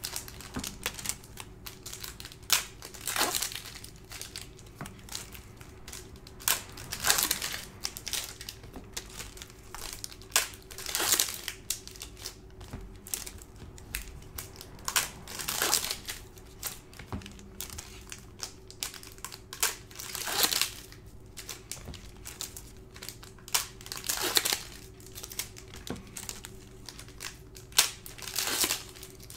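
Foil wrappers of hockey card packs crinkling as they are handled and opened, in irregular bursts every second or two. A faint steady hum runs underneath.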